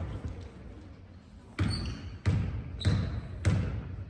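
Basketball being dribbled on a hard gym floor: four bounces in an even rhythm, starting about a second and a half in.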